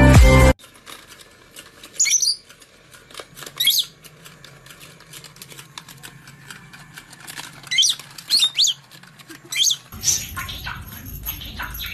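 Electronic background music cuts off about half a second in. After it, a pet parrot gives short, high, squeaky chirps, about six of them spread over the next ten seconds.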